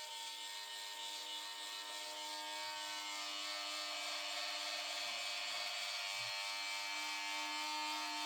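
Toy RC tank's small electric turret motor and plastic gearbox whirring steadily as the turret turns, with a little rise in level as it goes.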